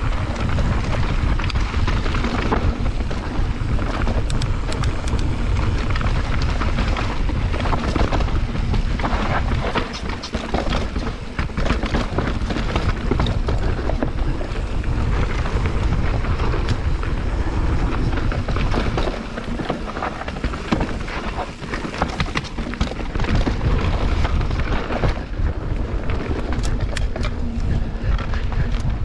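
Mountain bike riding down a dirt singletrack: wind buffeting the camera's microphone and tyres rumbling over the trail, with sharp clicks and rattles from the bike over bumps. The noise eases briefly about ten seconds in and again around twenty seconds in.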